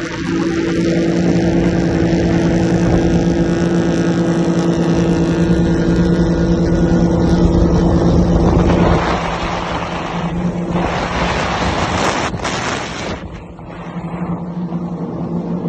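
Jet ski engine running at a steady pitch over the rush of water and wind. About nine seconds in, the engine note fades back and a louder rushing noise takes over, dipping briefly near the end.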